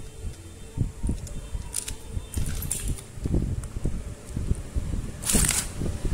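A hand screwdriver driving the screws back into the metal gear-head housing of an electric drill, with irregular knocks and handling noise from the casing and a brief burst of scraping noise about five seconds in.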